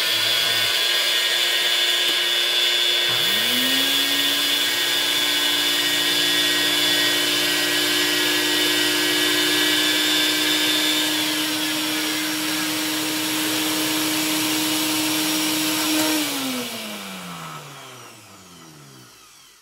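Two Nutribullet blenders milling raw flaxseed dry: the Nutribullet 900 Pro's motor is already running, and the Nutribullet Combo's motor spins up to join it about three seconds in. The 900 Pro stops around eleven seconds. Near the end the Combo's motor winds down in falling pitch after its cup is twisted off instead of being stopped with the button.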